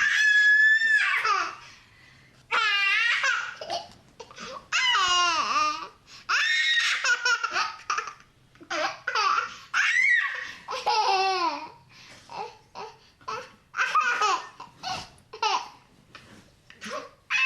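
An 18-month-old baby boy laughing loudly in repeated high-pitched bouts with short pauses between them. The bursts get shorter and choppier toward the end.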